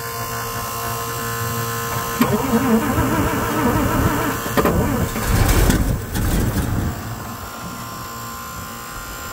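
Starter cranking the carbureted gasoline engine of a 5-ton military 6x6 truck, long unused and primed with gas poured straight into the carburetor. From about two seconds in the engine starts to fire, running rough and uneven before easing off.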